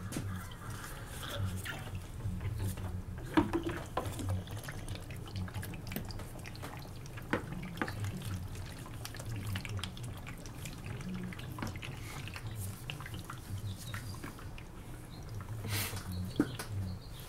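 Scattered light clicks and knocks from the plastic coolant expansion tank and its hoses being handled in a car's engine bay, over a low steady hum.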